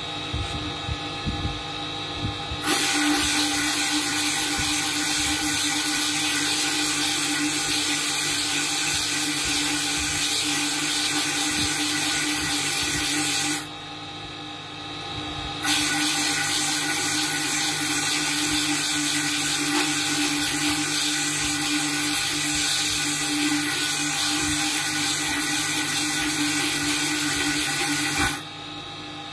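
Electric bead-making spindle running with a steady hum while a sapphire blank is pressed against its wet spinning tool, giving a loud, high grinding hiss. The grinding starts about three seconds in, breaks off for about two seconds near the middle, then goes on until near the end.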